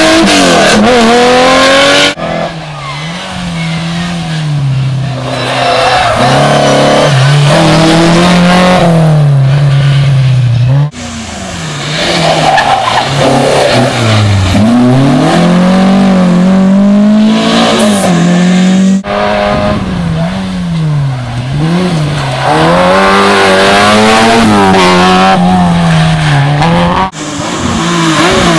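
Historic rally cars' engines revving hard on a special stage, the pitch climbing and dropping again and again through gear changes. Sudden cuts about every eight seconds switch to a different car.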